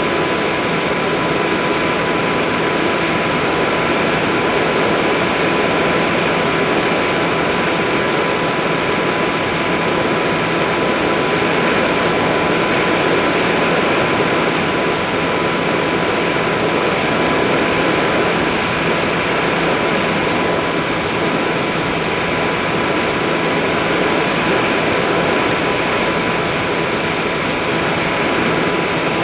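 Steady drone of an Easy Star RC plane's electric motor and pusher propeller in cruise, mixed with rushing air, heard close up from a camera on board. A thin, steady, high-pitched whine runs through it.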